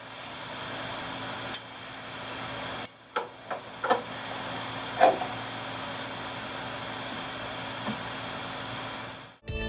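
A pitman arm puller being tightened with a big socket against a steady background hiss: scattered metal clicks and knocks, the loudest a sharp ringing metallic crack about five seconds in.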